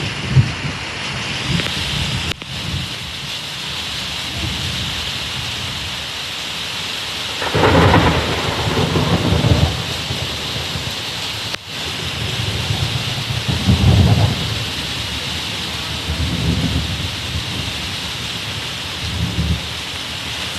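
Steady heavy rain with repeated rolls of thunder; the loudest rumble comes about eight seconds in and lasts around two seconds, with another strong one about fourteen seconds in and fainter grumbles between.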